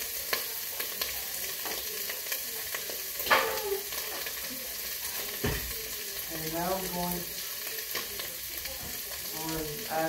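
Ground beef sizzling steadily in a pot on low heat, the fat already drained off. About three seconds in there is a sharp clink, and a dull knock comes a couple of seconds later.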